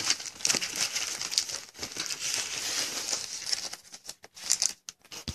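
Sealed foil packs of 2014 Panini Contenders Football cards crinkling and rustling as they are shuffled by hand, in quick uneven strokes. The sound thins to a few separate clicks near the end.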